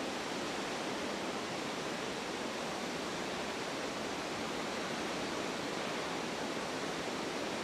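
Steady rushing of a river in flood, an even noise without change: the swollen Blue Earth River pouring through the Rapidan Dam.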